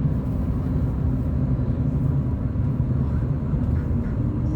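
Steady low road and engine rumble heard from inside a moving vehicle, with a faint steady hum coming in near the end.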